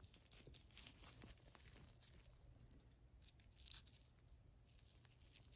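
Near silence: faint rustling of nitrile-gloved fingers handling a small spring and plunger, with one slightly louder rustle about two-thirds of the way in.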